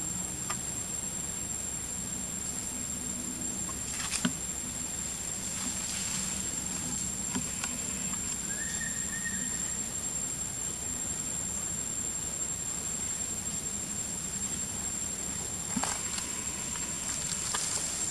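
A steady high-pitched insect drone in forest ambience, with a sharp snap about four seconds in and another near the end, and a brief high call about halfway through.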